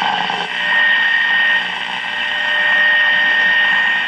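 Shortwave static hissing from the speaker of a 1939 Fada Model 169 AA5 tube radio, with a steady high whistle running through it; the hiss dips briefly about one and a half seconds in.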